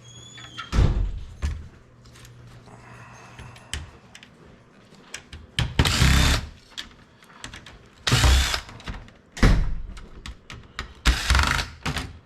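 Power drill or screwdriver run in several short bursts while a computer is taken apart for scrap, with clatter of metal parts between the bursts.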